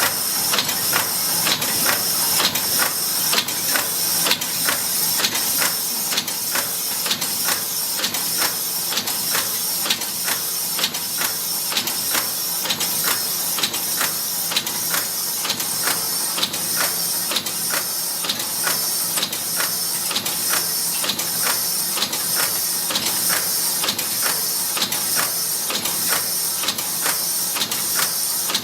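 Yeswin YBF13B6S six-station part former (cold-forging bolt press) running, its forging strokes knocking evenly at about two a second over a steady high hiss from the machine.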